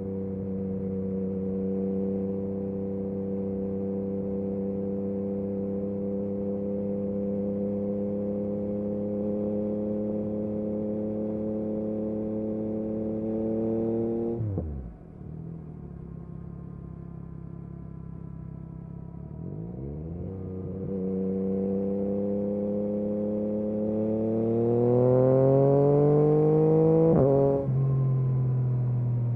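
2022 Yamaha MT-09 SP's three-cylinder engine through an Akrapovic exhaust, ridden at speed: a steady pull with the revs creeping up, a sharp fall in revs about halfway as the throttle closes, then the revs climb again and rise hard near the end, with a brief break in the note before it carries on.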